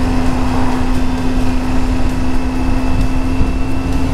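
Triumph Tiger 800 three-cylinder motorcycle engine running steadily at cruising speed, with a steady hum over heavy wind and road rumble.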